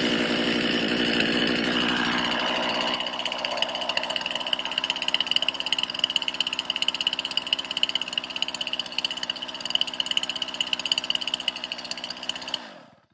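Stihl MS-261C two-stroke M-Tronic chainsaw running just after starting. It is louder for the first two seconds or so, then settles to a lower, unevenly pulsing idle fast enough that the chain keeps spinning, a telltale sign the owner puts down to the fuel system not giving it enough gas. It cuts off near the end.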